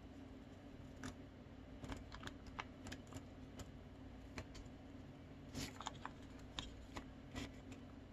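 Glue stick rubbed and tapped along the edge of folded colored paper, with light paper crackles as the pieces are handled: soft, irregular clicks and scrapes.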